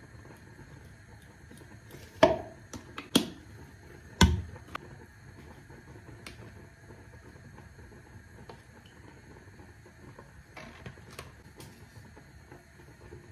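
Sharp knocks and clacks of plastic food containers and a metal spoon being handled over a plastic mixing bowl while a salad is put together: three loud knocks about a second apart, then a few fainter taps near the end.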